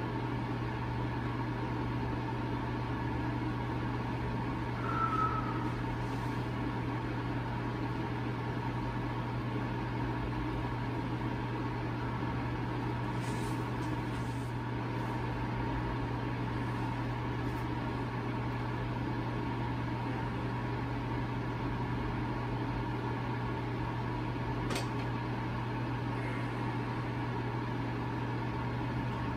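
Steady low machine hum of room equipment with a faint whine above it. A short high chirp comes about five seconds in, and a single sharp click near the end.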